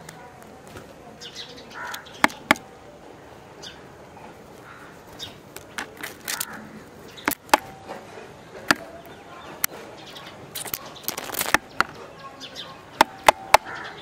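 Spotted doves and a collared dove pecking grain off a concrete wall top: sharp, irregular beak taps, several in quick pairs and a fast cluster of three near the end. A short flurry of wingbeats sounds about two-thirds of the way through, with faint bird chirps in the background.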